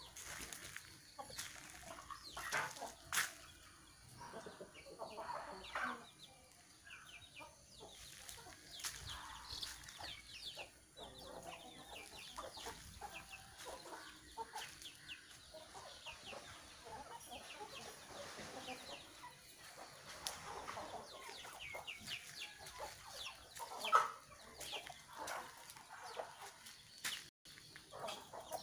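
A flock of Aseel game fowl clucking, with short calls scattered throughout and a few sharper, louder sounds among them.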